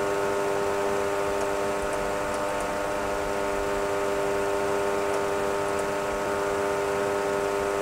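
Steady cockpit hum of a Boeing 737 Classic full flight simulator on final approach: an even drone with several held tones that does not change, the simulated engine and cockpit noise.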